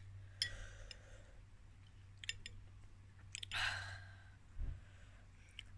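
Metal spoon clinking and scraping against a ceramic soup bowl a few times as soup is spooned up, with two short breathy slurps, the louder one just over halfway through.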